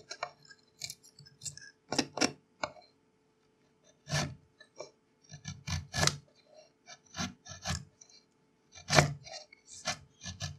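A small, freshly sharpened bench chisel pushed by hand, paring across a wooden board: a series of short, irregular scraping cuts, each lifting a shaving from the wood.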